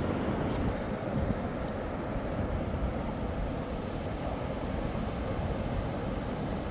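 Wind buffeting the microphone over the steady wash of low surf breaking on a sandy beach.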